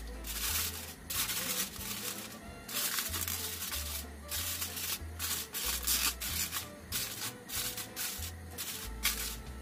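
Aluminium foil crinkling in irregular bursts as it is folded and crimped over a cake mould, over background music.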